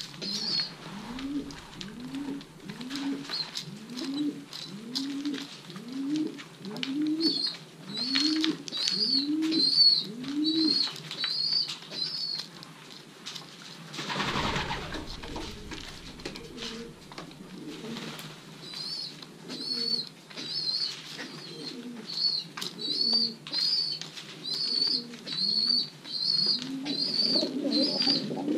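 Racing pigeons cooing, a run of low rising-and-falling coos about one and a half a second, with a high repeated chirping call over them in two stretches. A brief rushing noise comes about halfway through.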